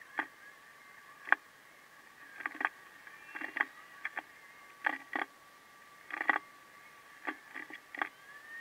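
Sped-up handling noise: about fifteen light knocks and clicks at irregular spacing, from paint supplies being picked up and set down, over a faint steady high hum.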